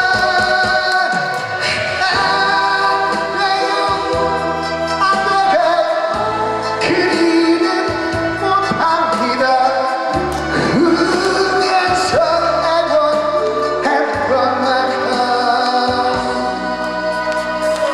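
A man singing a pop song into a handheld microphone over instrumental backing music with a bass line that changes note every second or two.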